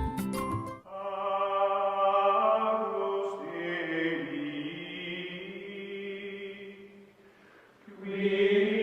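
Outro music of slow chant-like choral voices singing long held notes. The singing dies down at about 7 s and comes back a second later.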